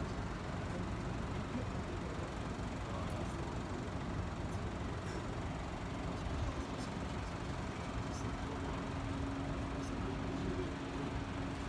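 Steady low rumble of road traffic, with a steady hum coming in about halfway through.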